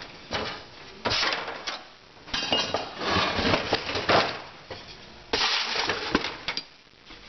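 Metal transmission parts being handled and set down on a metal workbench: a run of clinks, knocks and scrapes.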